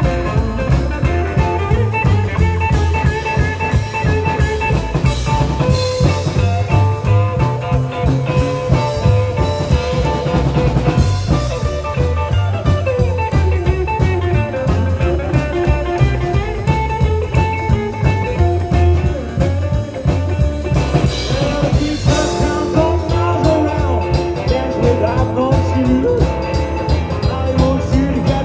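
Live rockabilly band playing: upright double bass, electric guitar and drum kit with a steady beat.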